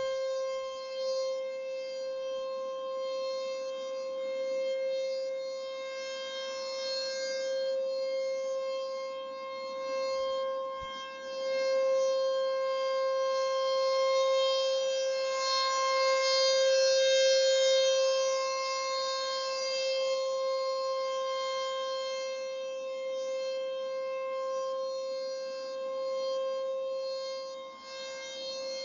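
Outdoor civil-defense warning siren sounding a steady single-pitch test tone, rich in overtones, its loudness slowly rising and falling every few seconds.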